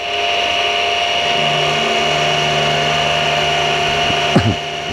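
Mini mill spindle running with a half-inch three-flute end mill cutting a metal workpiece down to height, a steady machine whine with a lower cutting tone joining about a second in. A short louder sound breaks in about four seconds in.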